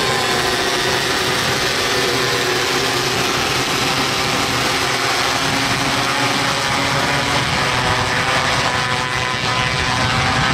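Engines of several 270cc micro sprint cars racing at speed, their overlapping pitches shifting as the cars pass.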